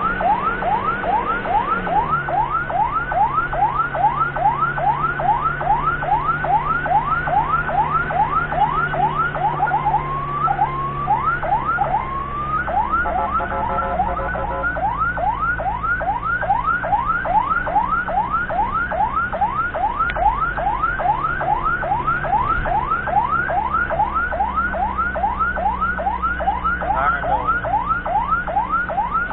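Ambulance siren in a fast yelp: rising sweeps about three a second. A little before halfway it briefly switches to slower sweeps and then a stepped warble before the yelp resumes. A vehicle engine runs steadily underneath.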